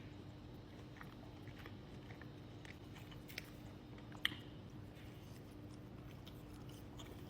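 Close-miked chewing of steak, with small wet mouth clicks, the sharpest about four seconds in, over a faint steady hum.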